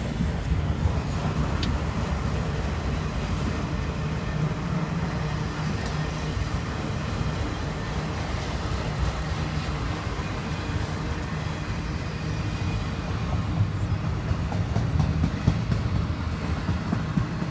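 Freight train autorack cars rolling past: a steady rumble of steel wheels on the rails, with scattered clicks.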